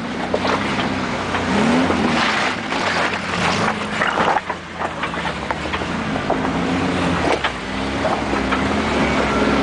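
Suzuki Samurai rock crawler's engine revving up and down as it climbs over rocks, with sharp knocks of the tires and chassis on the rock.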